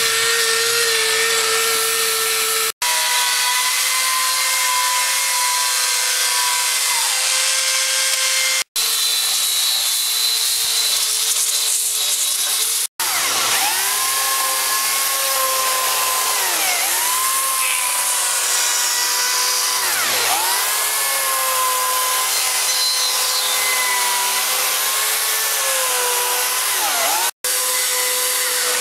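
Corded electric power carving cutter running at a high-pitched whine, its pitch dipping briefly again and again as it bites into the wood under load. The sound cuts out abruptly four times for an instant.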